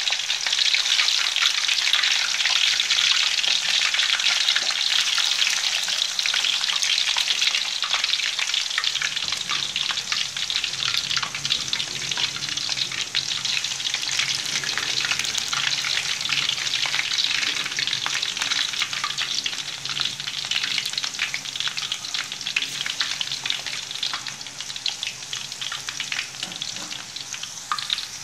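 Green banana slices deep-frying in hot oil in a wok: a dense, steady crackling sizzle of many fine pops, still vigorous because the freshly added slices are wet with their sugar marinade. It eases slightly toward the end.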